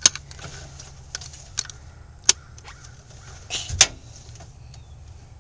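Metal hand tool clicking and clinking against a bolt in the engine bay: a few sharp separate clicks, then a louder clatter about three and a half seconds in.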